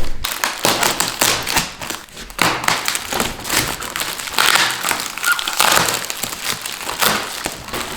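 Packaging being unwrapped by hand: irregular crinkling and rustling, with scattered light taps and knocks.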